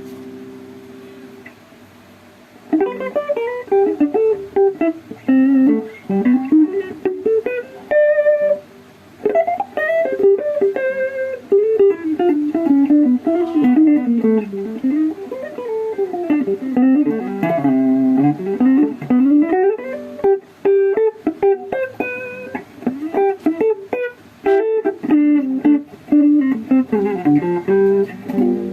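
Electric guitar playing: a chord rings and fades, then quick single-note lead runs climb and fall, with many notes in each run.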